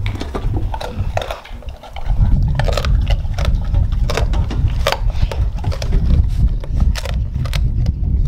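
A dog crunching and chewing frozen raw food from a stainless-steel bowl, with many sharp clicks and crackles as teeth and food knock against the metal. A steady low rumble comes in about two seconds in and stays under the chewing.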